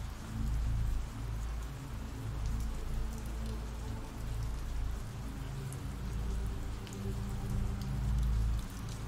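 Steady rain falling, an even hiss scattered with small drop clicks, over a low, quiet held music drone.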